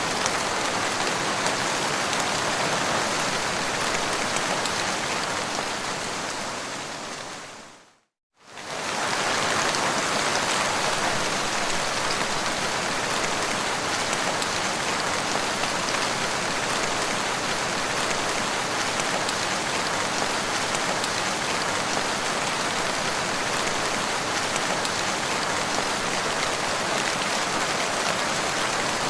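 Steady rain falling. About eight seconds in it fades away to a brief moment of silence, then comes straight back at full level.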